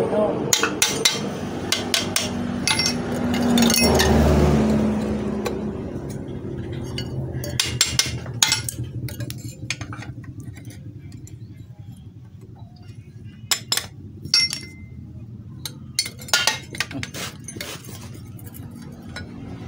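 Irregular light metal clinks and taps from steel tools, a drift and a hammer, being handled and set against a truck gearbox casing and its bearing. A low rumble swells and fades in the first few seconds.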